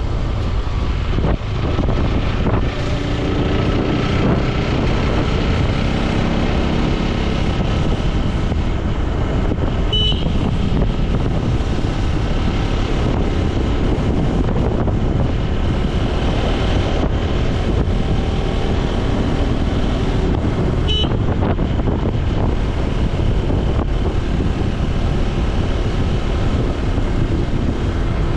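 Motorcycle engine running steadily while riding, with wind rushing over the microphone. Two short high-pitched chirps stand out, about ten seconds in and again about twenty-one seconds in.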